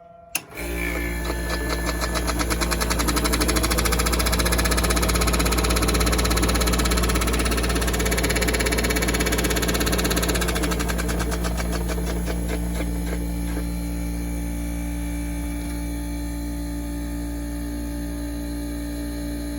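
Room air conditioner switched on with a click, then its Copeland compressor and fan motor start and run with a loud steady hum. A fast rattling tick runs through the first dozen seconds, then the unit settles and runs a little quieter.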